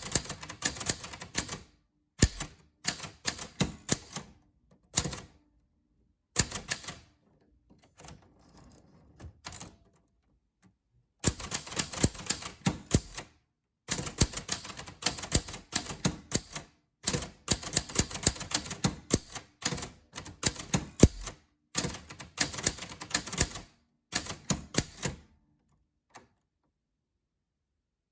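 Typewriter keys striking in rapid runs of clicks, with short pauses between the runs.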